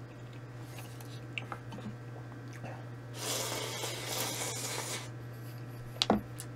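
Quiet eating sounds of a person eating ramen close to the microphone, with a noisy stretch of about two seconds a few seconds in and a short sharp sound near the end, over a steady low hum.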